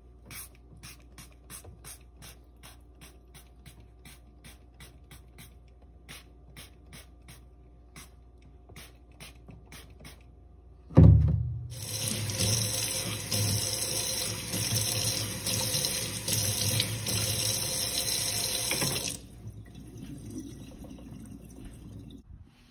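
Kitchen tap running into a stainless steel sink while sneakers are washed and rinsed. The water comes on loud and steady about halfway through after a thump, runs for about seven seconds, then stops. Before that there are only faint, evenly spaced clicks.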